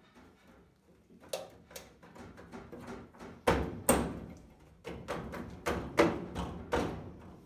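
Steel outer rocker panel of an early Ford Bronco being worked loose from the body after its spot welds were drilled out: a run of irregular sheet-metal clanks and knocks, getting louder and closer together from a little over a second in, with the heaviest a few seconds in.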